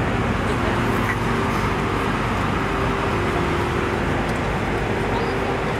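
Steady roar of airflow and engine noise inside an Airbus A320's passenger cabin in flight, with a faint steady hum through it.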